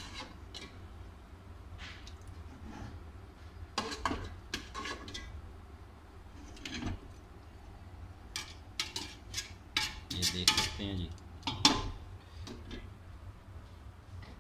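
Serving ladles clinking and scraping against stainless steel cooking pots as chicken curry is scooped from one pot into another. Scattered sharp clinks come thick and fast in the second half, the loudest about twelve seconds in, over a steady low hum.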